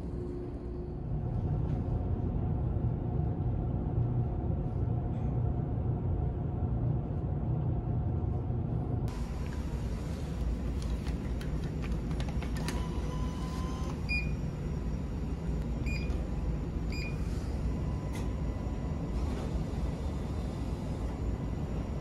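Steady low rumble of the ferry's engines heard inside a passenger cabin. About nine seconds in it gives way to a vending machine's hum, with clicks and a brief whir as a banknote is drawn into the bill slot, then three short electronic beeps.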